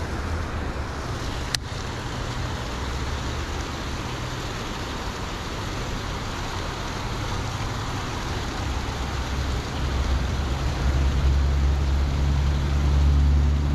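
Steady traffic rumble from the highway bridge overhead, swelling louder about ten seconds in. A single sharp click about a second and a half in.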